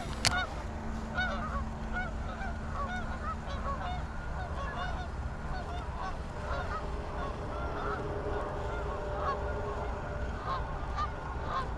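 Geese honking: many short calls follow one another in quick succession and overlap.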